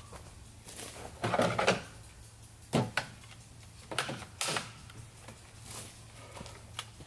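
A series of scattered knocks and clunks, the loudest a cluster about a second and a half in and sharp ones near three and four seconds, over a low steady hum.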